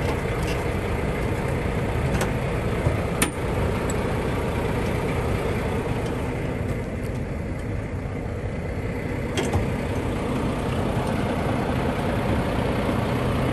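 Semi tractor's diesel engine idling with a steady low rumble. Two sharp clicks, about three seconds in and again near nine and a half seconds.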